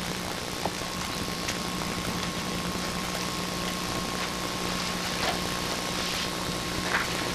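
A steady low hum under hiss, with a thin steady high tone from about a second in and a few faint clicks.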